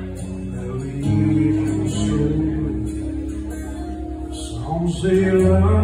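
Acoustic guitar strummed and amplified through a PA in a live solo set, ringing chords with a low bass note. A man's singing voice comes in near the end.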